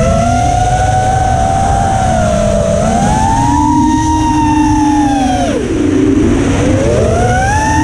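FPV racing quadcopter's brushless motors whining as the throttle changes: the pitch rises, holds, dips sharply about five and a half seconds in, then climbs again, over a heavy low rumble on the onboard camera's microphone.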